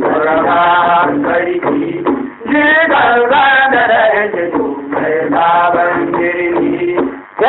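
Hausa traditional (gargajiya) song: a male voice sings a chant-like melodic line over a steady low drone, with short breaks between phrases about two seconds in and near the end.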